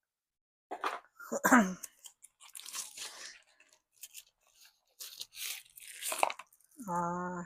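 Taped packaging being worked open by hand: irregular crackling, tearing and scraping of tape and plastic wrap in short bursts. There is a brief voiced sound about a second and a half in and a held hum near the end.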